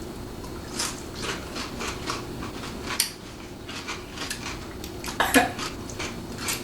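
Cutlery and dishes clinking while people eat: a scattered run of short clicks and taps, with a louder knock about three seconds in and another just past five seconds.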